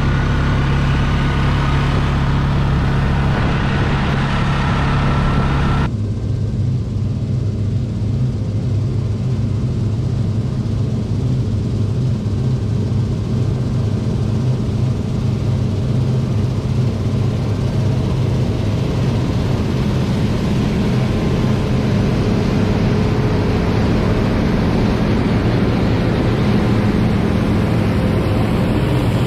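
Vehicle engine running steadily, a low drone heard from inside the machine. About six seconds in, the higher hiss cuts out abruptly and the low drone carries on.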